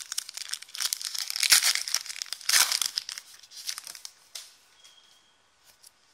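Plastic wrapper of a 2016-17 Totally Certified basketball card pack being torn open and crinkled by hand. It is loudest from about one to three seconds in, then fades to light rustling and clicks as the cards are handled.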